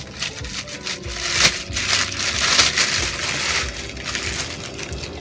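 Thin plastic bag crinkling and rustling as it is pulled off a plastic bottle, loudest in the middle.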